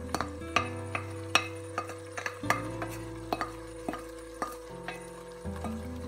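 Wooden spoon scraping and knocking against a steel frying pan as sautéed vegetables are tipped into a pot: a string of sharp taps about twice a second. Soft background music plays underneath.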